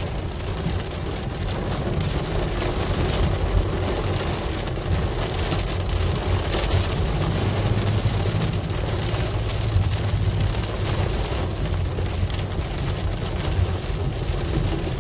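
Heavy rain falling on a car's roof and windshield, heard from inside the cabin while driving, with scattered ticks of drops over the low rumble of the engine and tyres on the wet road.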